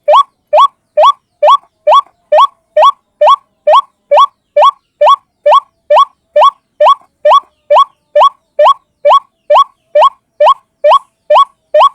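White-breasted waterhen (ruak-ruak) call as a looped lure recording: a single short rising note repeated evenly, a little over two a second.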